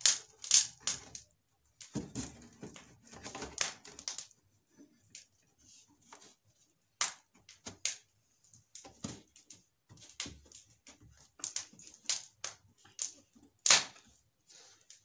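Wooden frame being fitted and pressed down onto a plywood-and-foam hive body by hand: irregular knocks and clicks of wood on wood, with a stretch of scraping and rubbing about two seconds in.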